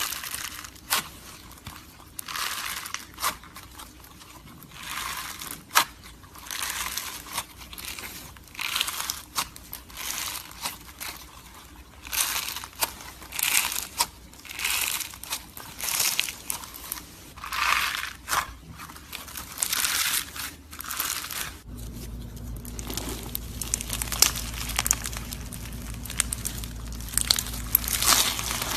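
Crunchy slime being squeezed and pressed by hand, giving repeated crackling crunches about once or twice a second. A steady low hum joins underneath about two-thirds of the way through.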